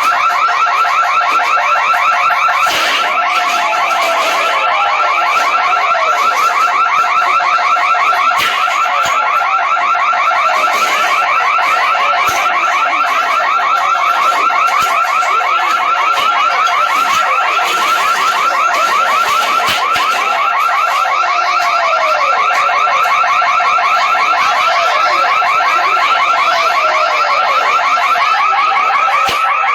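Electronic alarm sounding without a break: a loud, rapidly pulsing high tone. A few sharp knocks can be heard faintly underneath.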